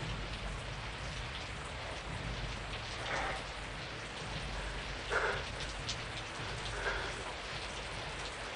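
Steady rain falling, with three short, faint sounds about three, five and seven seconds in.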